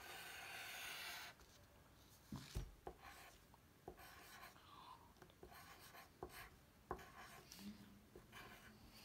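Pencil writing on paper: faint scratching strokes, one longer stroke at the start, then short strokes broken by a few light knocks of the pencil on the page.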